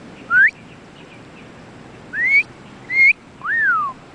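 A person whistling to a dog to catch its attention: three short upward-sliding whistles, then one that rises and falls.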